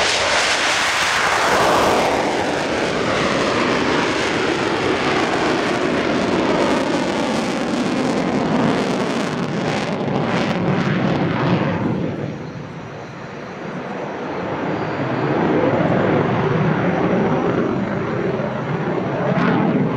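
Eurofighter Typhoon's twin EJ200 turbofan engines at full power in afterburner, a loud jet noise that falls in pitch as the jet passes on take-off and climbs away. The noise dips briefly about twelve seconds in, then swells again as the jet comes back around.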